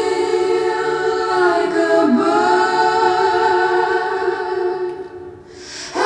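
Music: slow vocal music of long, held singing notes in layers. The notes slide down about two seconds in and thin out briefly near the end before new notes come in.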